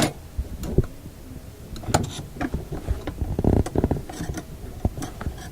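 Handling noises at a workbench: scattered clicks and taps with some rubbing. About three and a half seconds in there is a short patch of rumble and rapid ticking.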